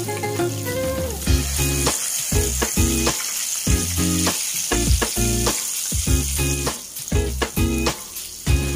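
Breaded fish fillets sizzling as they deep-fry in hot oil, a steady high hiss that is strongest from about a second in and eases near the end. Background music with a regular beat plays throughout.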